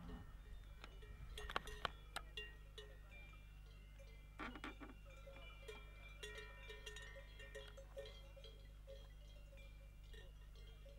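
Cowbells on grazing cattle clanking and ringing faintly and irregularly, with a few louder clanks about one and a half seconds and four and a half seconds in, over a steady low hum.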